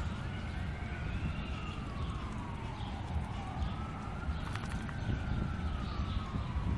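Emergency vehicle siren wailing, its pitch slowly rising and falling about every four seconds, over a steady low rumble.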